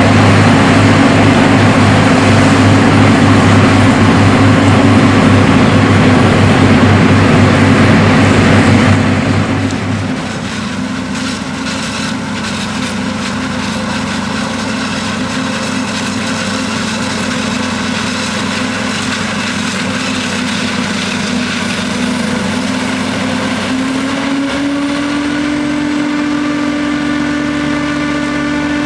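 Heavy diesel farm machinery at work in a silage harvest: a loud engine with a rushing noise over it for about nine seconds, then dropping to a quieter, steady engine drone that rises slightly in pitch near the end.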